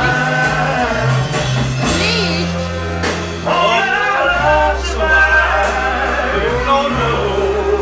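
Live band playing a rock cover, with voices singing over sustained bass notes.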